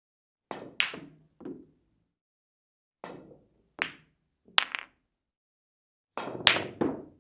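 Billiard balls clicking and knocking together in short separate takes. Each take is one to three sharp hits close together, with dead silence between takes.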